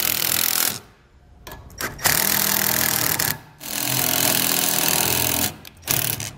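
Cordless impact driver running self-tapping screws into a metal mounting bracket, in several bursts of one to two seconds with short pauses between.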